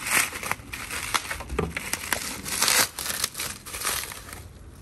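Bubble wrap crinkling and crackling as it is pulled off a plastic part, in quick irregular crackles that die down near the end.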